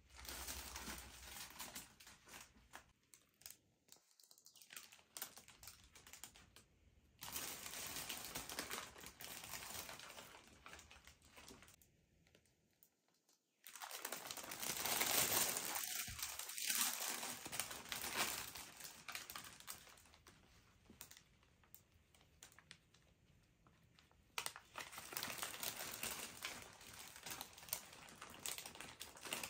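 Gift packaging being handled and unwrapped: crinkling and rustling in irregular spells with short pauses, loudest about halfway through.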